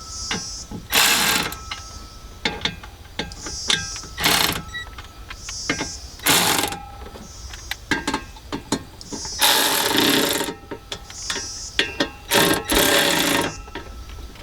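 Ratchet wrench run in short rapid bursts, about five times, tightening bolts, with lighter clicks between the bursts.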